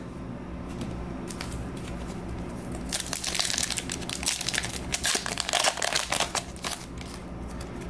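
Wrapper of a Topps Star Wars Card Trader trading-card pack being torn open and crinkled by hand: a dense crackling starts about three seconds in and dies down a few seconds later.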